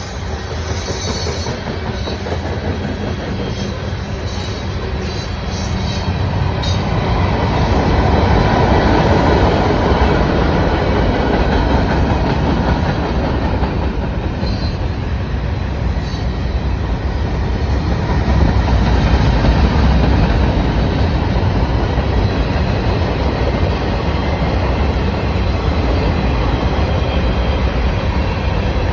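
A CPKC freight train rolling past. It makes a loud, steady rumble of railcars on the rails that swells and eases as the cars go by.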